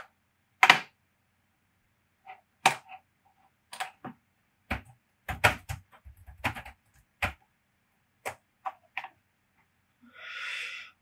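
Irregular clicks of a computer keyboard and mouse: single clicks and short runs of key presses, typical of coordinates being typed in. A short breathy rush of noise about a second long comes near the end.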